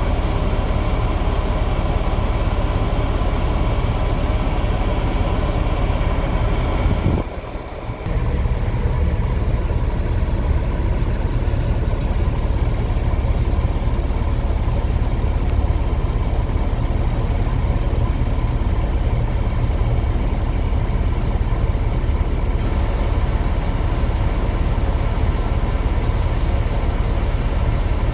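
Heavy diesel machinery engine running steadily with a deep low rumble, dropping briefly about seven seconds in before carrying on.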